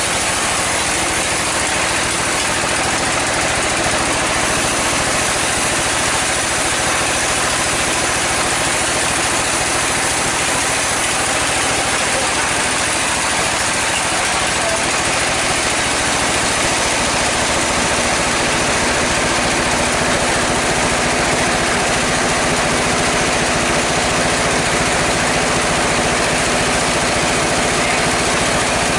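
Sawmill saw machine running steadily as a mahogany log is pushed through it by hand: a continuous loud machine noise that holds an even level throughout.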